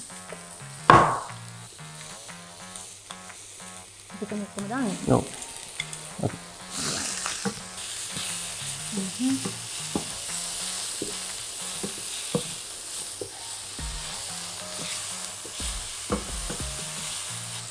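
Vegetables sizzling in a stainless steel pan as a wooden spatula stirs and tosses them, with frequent taps and scrapes of the spatula against the pan. A loud knock about a second in; the sizzle grows louder about seven seconds in.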